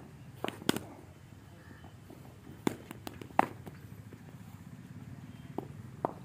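Several sharp knocks of cricket bat striking a hard leather ball and balls landing, the loudest a little under a second in and about three and a half seconds in.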